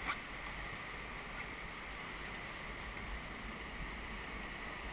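Steady rush of whitewater in a river rapid, with one brief knock right at the start.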